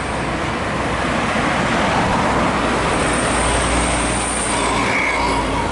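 A bus driving past on a road: steady engine rumble and tyre noise, with a thin high whine for about a second and a half in the middle.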